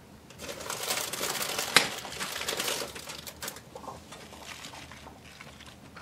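Crisp rustling and crinkling of raw spinach leaves as handfuls are piled into a pan, with one sharp click a little under two seconds in; the rustling fades after about three and a half seconds.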